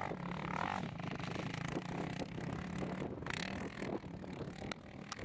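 Sport quad bike's engine running steadily as it rides, with wind noise on the microphone and a few sharp clicks near the end.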